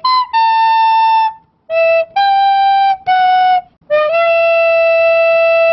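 Solo flute-like wind instrument playing a slow melody of separate held notes, ending on a long held note that starts about four seconds in.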